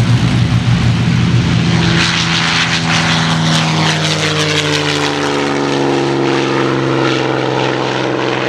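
Piston-engined propeller aircraft running: a steady engine drone, with the engine note rising in pitch from about four seconds in.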